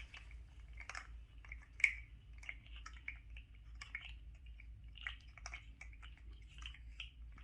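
Faint, irregular small clicks and crinkles of fidget toys and their packaging being handled and squeezed.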